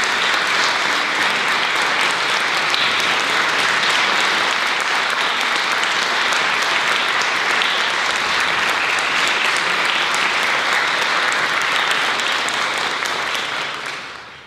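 Audience applause: steady, dense clapping from a concert hall crowd, fading away near the end.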